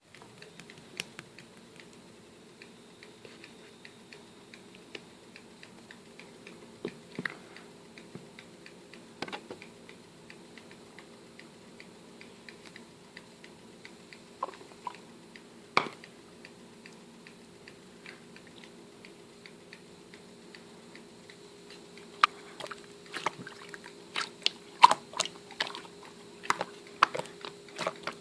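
Scattered sharp clicks and crunchy taps over a steady low electrical hum. They come a few at a time for most of the stretch, then grow frequent and louder about three quarters of the way through.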